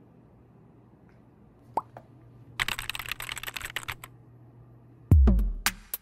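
Low room hum, broken about two seconds in by a short pop and then a second and a half of dense clattering noise. About five seconds in, electronic background music with heavy drum-machine kicks starts and is the loudest sound.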